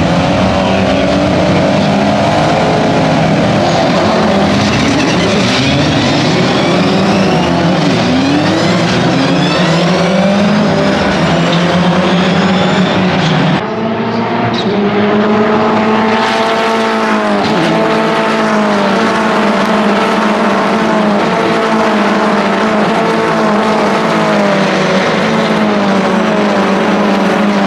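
A pack of open-cockpit prototype race cars accelerating down the start/finish straight after the race start, many engines revving up through the gears at once, with single cars passing by and their pitch dropping as they go. The sound cuts and picks up again about halfway through.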